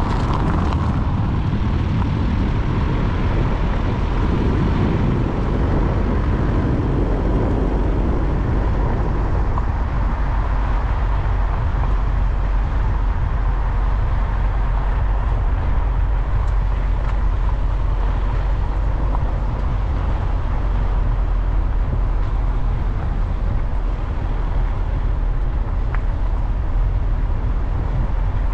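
Steady low rumble of wind and road noise from a vehicle driving along a lane, a little fuller in the first several seconds.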